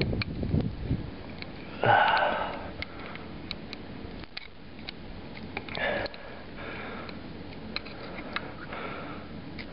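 A person sniffing or breathing sharply through the nose a few times, the loudest about two seconds in and another about six seconds in, with scattered light clicks and taps between.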